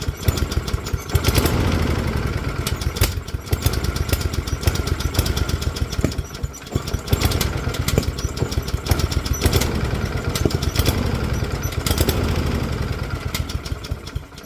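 Honda GCV160 lawnmower's single-cylinder engine running with an unsteady speed, rising and falling every few seconds: the RPM fluttering and unable to climb above about 800, a fault the owner can't explain.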